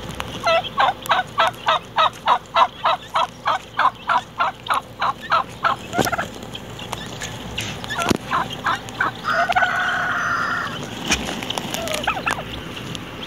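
Domestic turkeys calling, with a strutting tom among them. There is a long run of evenly spaced calls, about four a second for some five seconds. Then come scattered single notes and one longer call of about a second and a half, about ten seconds in.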